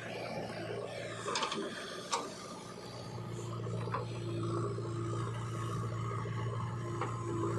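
Steady motor hum with gritty scraping of a loader bucket working through mud, and a few sharp clicks. The hum grows steadier and stronger after about three seconds.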